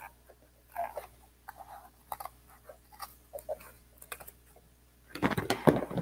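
Scissors cutting through corrugated cardboard: a run of short, irregular crunching snips, getting denser and louder near the end.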